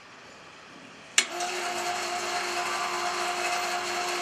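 Electric wire-rope winch of a mini roof crane clicks on about a second in and then runs steadily with an even whine, paying out cable to lower the hook.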